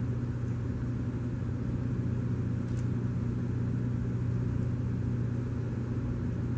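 Steady low room hum, unchanged throughout, with a faint click near the middle.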